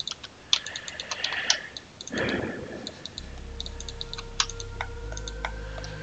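Computer keyboard and mouse clicks: scattered short taps in small clusters, with a faint steady low hum coming in about halfway.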